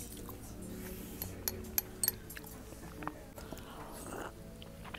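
Eating sounds from a khinkali dumpling: sharp mouth clicks and smacks, then a bite into the dough near the end.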